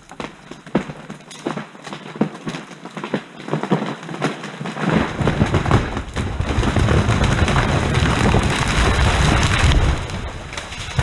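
A tree coming down: a quickening run of sharp cracks and snaps as the wood gives way for about five seconds, then a loud sustained crash and rush of branches that lasts about five seconds and dies away near the end.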